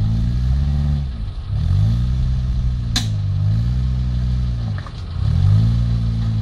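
Lifted short-wheelbase 4x4's engine revving up and down under load as it crawls up over rocks. The revs sag and climb again about a second and a half in and again just before five seconds. There is a single sharp knock about three seconds in.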